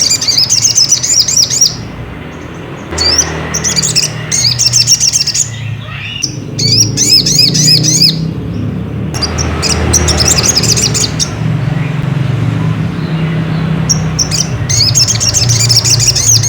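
Crimson sunbird (sogok ontong) song: about five bursts of rapid, high chirping trills, each one to two and a half seconds long with short pauses between, played as a lure to stir a caged bird into singing. A steady low hum runs underneath.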